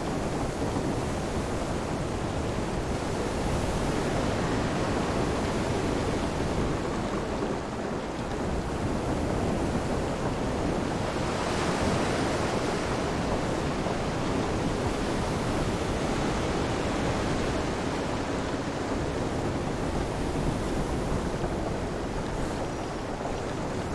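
Storm ambience: a steady wash of wind, rain and surf, with one louder swell about halfway through.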